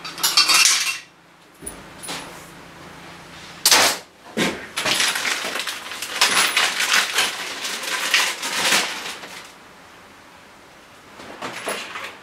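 Metal clinks and a sharp clatter of tools, then a clear plastic parts bag crinkling and rustling for about five seconds as it is opened on a steel workbench.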